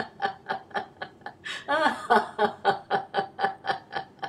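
A woman laughing aloud in a steady run of 'ha' pulses, about four a second. About a second and a half in she breaks off for a quick gasp of breath, then laughs on. This is deliberate laughter on the exhale in a laughter-yoga 'smile ups' exercise.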